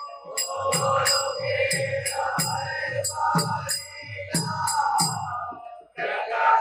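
Devotional kirtan music: hand cymbals ringing on a steady beat over low drum strokes and a held drone. It drops out briefly near the end, then comes back.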